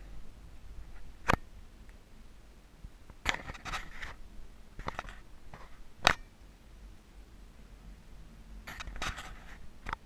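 Scattered sharp clicks and short rustling scrapes from a handheld camera being handled while carried through an empty room, ringing a little in the bare space. The loudest is a single click about six seconds in.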